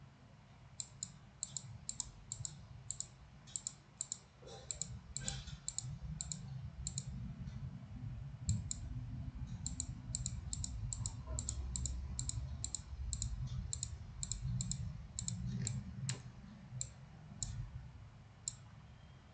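Computer mouse button clicking in a steady run, about two or three clicks a second, with a short pause partway and a few last clicks near the end; each click places a control point while drawing a curve in 3D software. A low background hum runs underneath.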